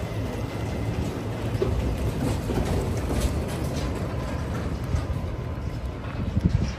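Diesel road train with three livestock-crate trailers driving off at low speed: a steady engine rumble, with the trailers and tyres rolling by and a few light rattles from the crates.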